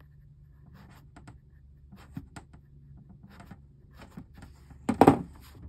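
Scissors and yarn scratching and rubbing lightly in small scattered ticks as a yarn tail is tucked into a crocheted amigurumi plushie. One short, loud bump comes about five seconds in.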